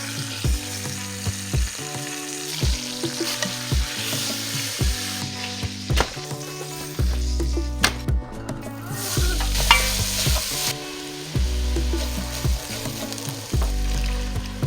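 Food frying in hot oil in a pot, a sizzle that comes and goes, over background music with a steady beat.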